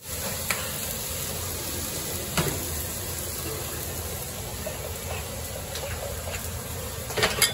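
Steady restaurant-kitchen background noise, a hiss over a low rumble, with a few short knocks, the loudest cluster near the end.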